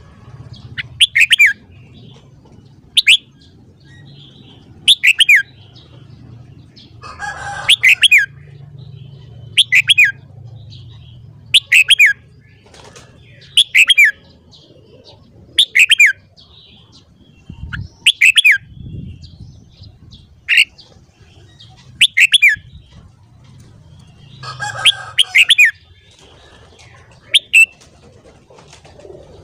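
Red-whiskered bulbul singing a short, loud, falling song phrase over and over, about once every two seconds, with a longer, rougher call breaking in twice. A faint steady low hum runs underneath.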